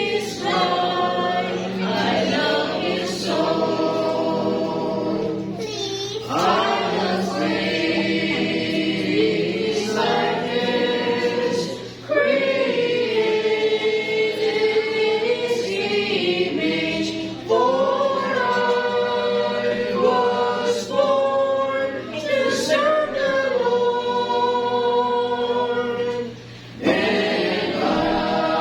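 A congregation sings a hymn together, unaccompanied, holding long notes with brief pauses between phrases.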